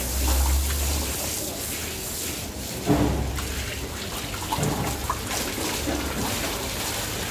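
Water from a hose spraying and splashing onto a bull's hide as it is washed, a steady hiss. A single sharp knock about three seconds in.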